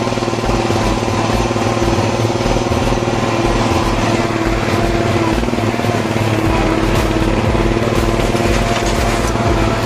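An off-road 4x4's engine running steadily while the vehicle drives along a dirt trail, heard with a continuous hiss of wind and road noise.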